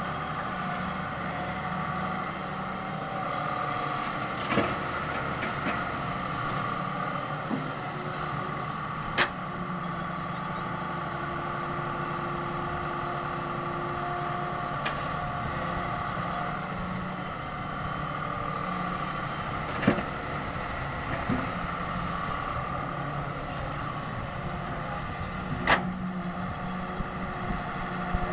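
Daewoo Solar 130 wheeled excavator's diesel engine running steadily while it digs wet sand. Four sharp knocks are spread through it, a few seconds apart.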